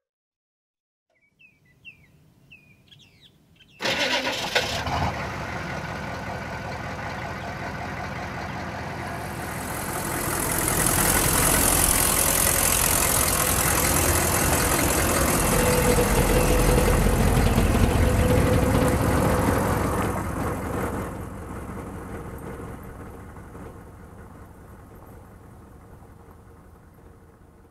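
Engine of a 1970 Ford C900 fire engine starting suddenly about four seconds in and running, louder from about ten seconds in, then fading out.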